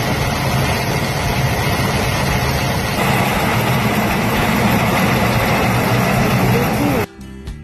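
A heavy engine running steadily, with the hiss of grain pouring from a grain cart into a conveyor hopper. It cuts off abruptly about seven seconds in, and music begins.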